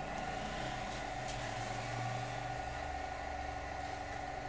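RC model M41A3 tank standing and running with its smoke units on: a steady electric hum with a low engine-like rumble that drops in pitch about two and a half seconds in.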